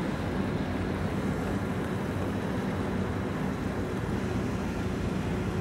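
Steady low drone of a pusher boat's diesel engine driving a convoy of scrap-laden barges, with wind rumbling on the microphone.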